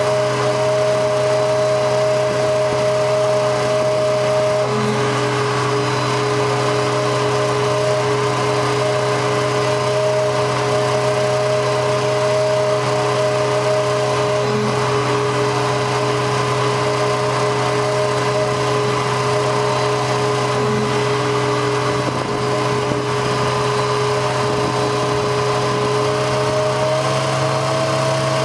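1997 GMC C7500 digger truck's engine running steadily at a raised speed to drive the auger's hydraulics, with a steady whine on top of the engine hum.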